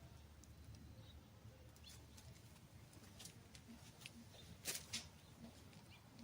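Near silence: faint low room hum with a few scattered soft ticks and two short clicks just before five seconds in.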